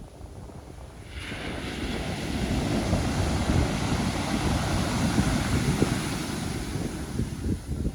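Pacific Ocean surf: a wave breaks about a second in and its wash hisses up the shore, fading away near the end. Wind buffets the microphone throughout.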